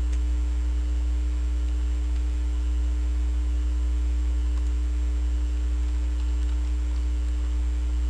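Steady electrical mains hum with a fainter steady tone above it, and a few faint computer keyboard clicks.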